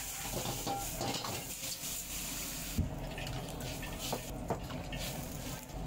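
Vegetables sizzling in a hot iron wok as a steel ladle stirs them and knocks against the pan, with a sharp knock about three seconds in; liquid is added and sizzles and splashes in the hot wok.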